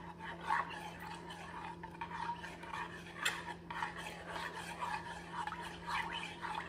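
Metal spoon stirring cornstarch into cold milk in a saucepan, scraping and clinking against the pot's bottom and sides in repeated, uneven strokes as the cornstarch is dissolved.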